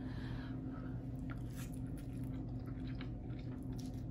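A person slurping and chewing a mouthful of noodles, with short, scattered wet mouth sounds over a steady low hum.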